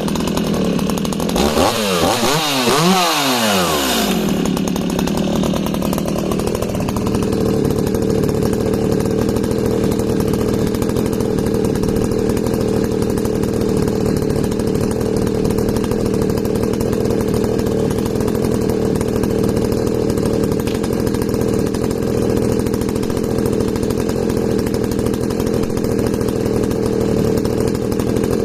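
Echo CS-5100 two-stroke chainsaw revved up and down a few times, then held at steady high revs for over twenty seconds while cutting through wood.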